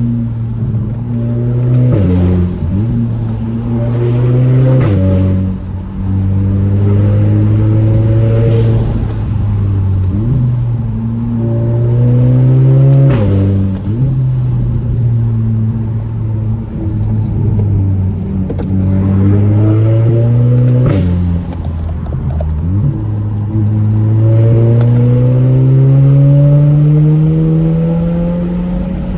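Audi A4's engine and loud aftermarket exhaust accelerating hard through the gears. The pitch climbs steadily on each long pull, then drops at the quick dual-clutch upshifts, four times. Several of the upshifts come with a sharp crack from the exhaust, the so-called DSG fart.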